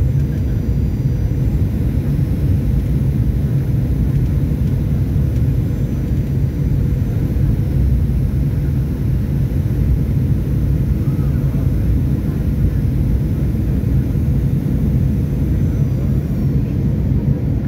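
Boeing 737-800 cabin noise beside its CFM56-7B turbofan engine: a steady, even low rumble of the engine and airframe, heard from inside the cabin.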